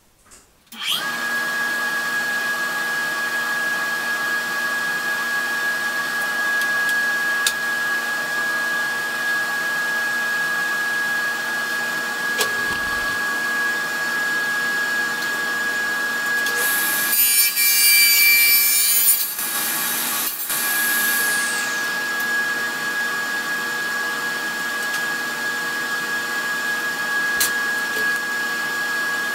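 Table saw motor switched on about a second in and running with a steady whine; from about 17 to 19 seconds it grows louder and hissier as the blade cuts through plastic sheet.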